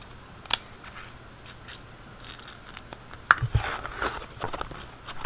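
Homemade slime being handled and worked, giving irregular short sticky clicks and crackles.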